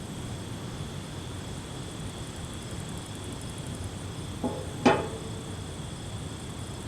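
Night insects chirring steadily in a high, even tone over a low steady rumble, with one short sharp knock about five seconds in.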